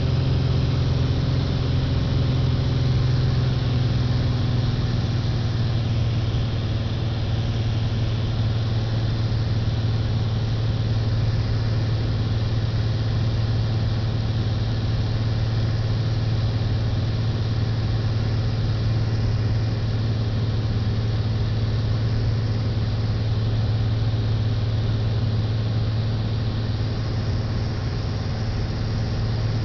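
Small plane's engine and propeller running steadily in flight, heard from inside the cabin as a low, even hum; the pitch eases down slightly in the first few seconds, then holds.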